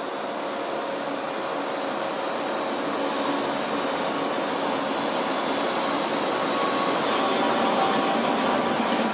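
Belgian NMBS electric multiple unit moving along the platform, its motors and wheels running with a steady rumble that grows gradually louder as the train picks up speed. A brief high hiss sounds about three seconds in.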